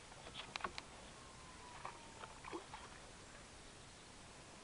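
A few faint clicks and taps from a landing net and keepnet being handled as a caught carp is tipped in and the net lifted away, most of them in the first second, with a few softer ones about two seconds in.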